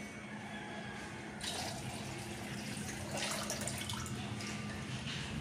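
Coconut water pouring and trickling from a freshly chopped-open green coconut into a ceramic bowl. The faint splashing grows louder about a second and a half in.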